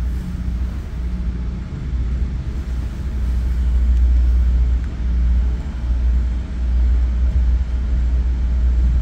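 Bombardier F59PH diesel locomotive's EMD 710 prime mover working hard under power, heard from inside the first coach behind it as a steady deep rumble.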